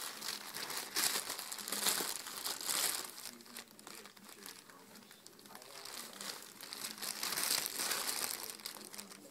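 Thin clear plastic bag crinkling and rustling as a cat paws and rolls against it, with two spells of loud crinkling, about a second in and again near the end, and quieter rustling between.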